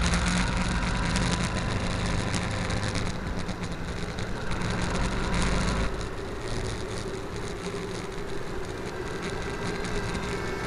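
Motorcycle engine running steadily, heard from a camera mounted on the bike, with wind noise over it. The engine note falls away and gets quieter about six seconds in.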